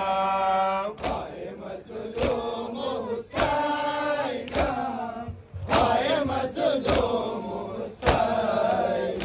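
A crowd of men chanting a Muharram lament refrain in unison, with a regular beat of hands striking chests (matam) about once a second.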